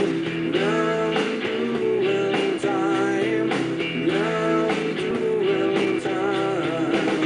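Rock music soundtrack with guitar, playing steadily, with bending guitar notes.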